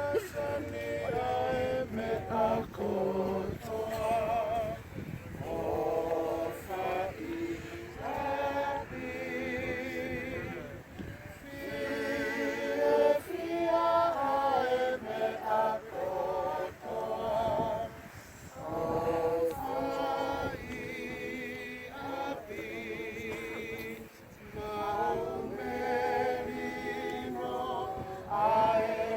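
Choir-style singing by several voices: phrases of held notes with a wavering vibrato.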